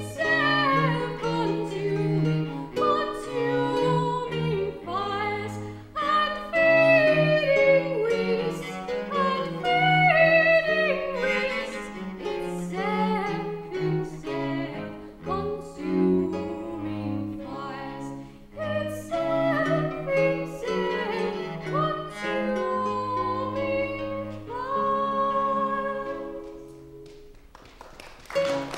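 A woman singing a Baroque art song in classical style, accompanied by classical guitar and cello. The music dies away near the end as a phrase closes.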